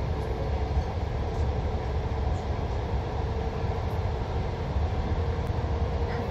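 Passenger train running: a steady low rumble with a faint, even hum over it.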